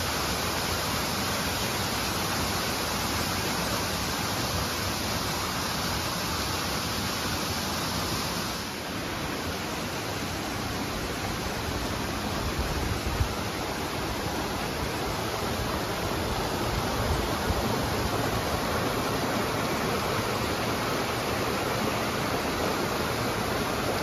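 Mountain creek rushing over granite rocks in small cascades, a steady rush of water; its higher hiss eases a little about eight seconds in.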